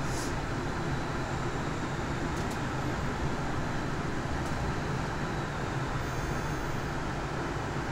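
Steady rumble and hiss of a Rotterdam metro train running, heard from inside the passenger car.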